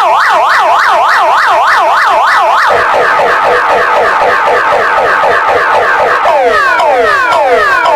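Emergency alert alarm siren tone: a rapid up-and-down yelp, about three cycles a second, that changes about three seconds in to a stream of quick falling sweeps.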